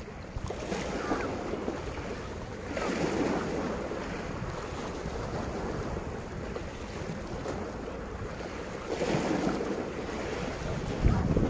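Sea waves washing against a rocky breakwater, swelling louder a few times, with wind rumbling on the microphone.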